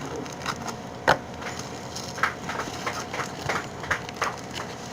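A delivery parcel being opened by hand: its packaging crackles and crinkles in irregular snaps, the loudest a sharp snap about a second in.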